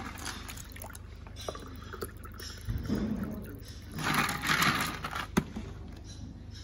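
Water poured from a pitcher into a glass tumbler, a splashing gush of about a second starting about four seconds in, followed by a single sharp knock.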